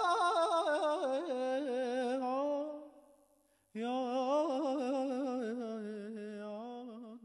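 A voice singing long held notes with a wide vibrato. The first note slides down and fades out about three seconds in; a second long note starts suddenly a moment later.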